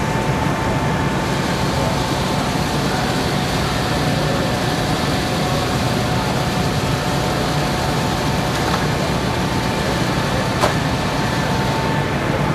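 Steady machinery noise with a constant whine at several pitches, and one sharp click about ten and a half seconds in.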